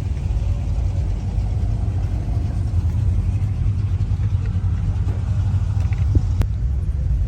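Car on the move: a steady low rumble of engine and road noise, with one sharp click about six seconds in.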